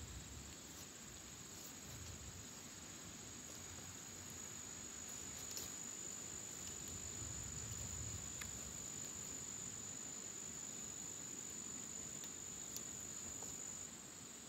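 Faint, steady high-pitched insect trill, with a few small clicks from handling a wire line and a fishing lure.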